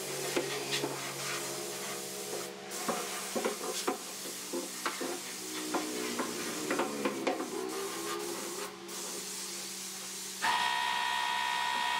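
Light clicks and knocks of a spray gun and wooden cabinet shelves being handled over a low hum and hiss. About ten and a half seconds in, the spray gun's air spray starts up suddenly as a steady, louder hiss with a whine.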